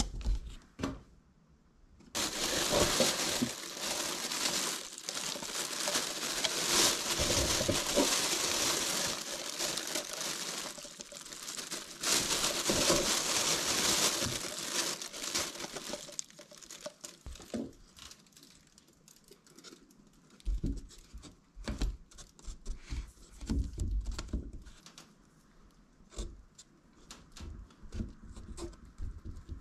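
Thin plastic bag of potting soil crinkling loudly as hands rummage in it, for about fourteen seconds with a short lull in the middle. After that, only softer scattered taps, rustles and low thumps as soil is pressed into a small plastic container.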